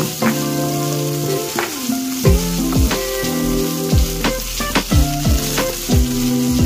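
Diced bacon sizzling in a frying pan, stirred with a wooden spoon, under background music with deep bass notes.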